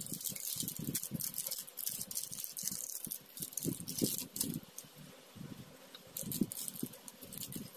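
Clear plastic packaging crinkling while acrylic dotting tools rattle and click against each other and their plastic tube as they are handled, with irregular soft knocks.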